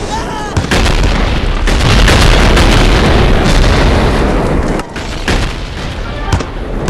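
Cartoon stomach-growl sound effect from an anime: one long, loud, low rumble lasting about four seconds, with a girl's voice briefly before and after it.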